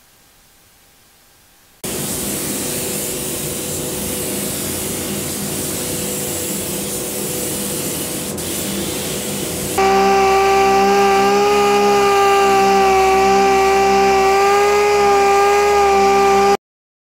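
A steady hiss like compressed air, then a louder power sander or polisher on a car door panel, its motor running with a steady high whine that cuts off sharply near the end.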